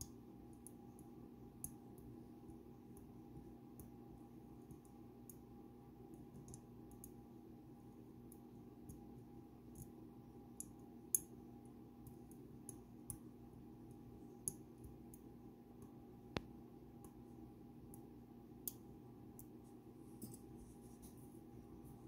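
Faint, scattered metallic clicks and ticks of a hook pick working the pins of a Dom Sigma pin-tumbler lock cylinder under tension, the loudest click about 11 seconds in, over a steady low hum.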